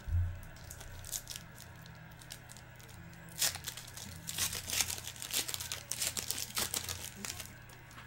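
Foil trading-card pack wrapper crinkling and tearing open, with a burst of crackling about three and a half seconds in that goes on for several seconds, over a steady low hum.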